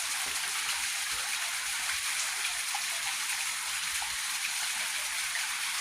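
Heavy rain falling steadily, an even hiss of many drops.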